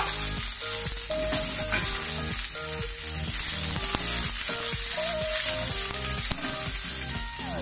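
Onion, bell pepper and chili pieces stir-frying in hot oil in a nonstick frying pan over a high gas flame: a steady high sizzle, with scraping and knocks as the pieces are stirred and tossed in the pan.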